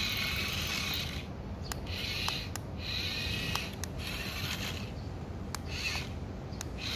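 Transforming robot car toy's small electric motor and plastic gears whirring in short spells, with sharp clicks of plastic parts, as it unfolds from car into robot.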